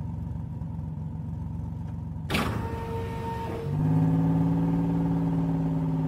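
Cartoon fire engine's engine sound effect: a low steady running hum, a sudden sharp noise a little over two seconds in, then the engine note grows louder and holds steady as the truck drives off.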